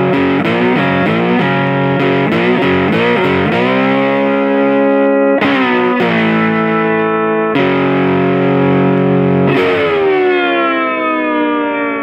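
Intro music on a distorted electric guitar: a fast riff of short notes, then a few held chords, the last one ringing out and fading near the end.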